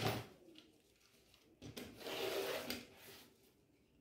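A sharp knock as an acrylic quilting ruler is pressed onto a cutting mat, then a rasping rub for about a second and a half, starting near two seconds in, as a rotary cutter runs along the ruler's edge, slicing through cotton fabric.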